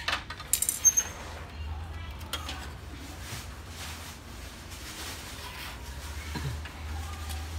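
Hands working on an opened-up HP LaserJet Pro M227fdw laser printer: a quick run of sharp clicks and clinks of metal and plastic parts in the first second, one with a brief high ring, then lighter scattered clicks as the frame and upper assembly are handled, over a steady low hum.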